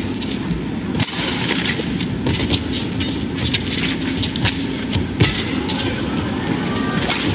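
Badminton rally: several sharp racket-on-shuttlecock hits at irregular intervals over a steady hum of the arena crowd.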